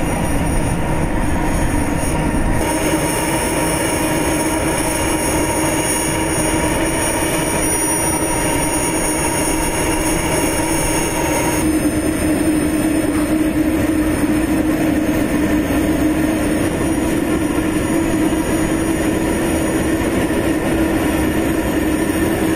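Loud, steady aircraft turbine noise on an airfield ramp: a droning hum with several high, steady whining tones over it. The high whine changes character about halfway through.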